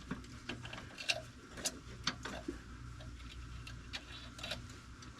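Irregular light metallic clicks and taps as a heater cable is worked through a barrel screw on a VW Beetle heater box lever, over a low steady hum.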